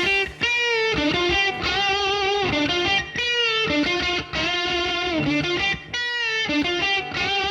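Unaccompanied electric guitar playing a slow blues lead intro: single held notes, several bent up or down in pitch and wavering with vibrato, separated by short breaks.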